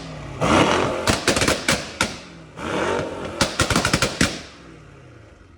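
Stage 2 tuned Mercedes-AMG E63's V8 revved twice, each blip followed by a rapid string of sharp exhaust pops and bangs as the revs drop, the second crackle tapering off near the end.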